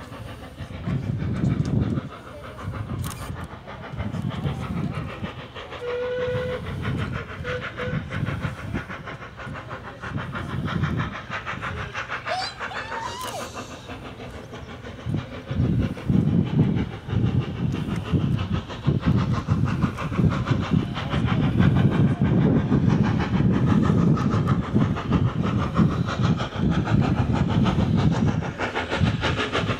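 Steam locomotives top-and-tailing a passenger train, working hard up a steep gradient with rapid exhaust chuffs. The chuffing grows much louder about halfway through as the train approaches.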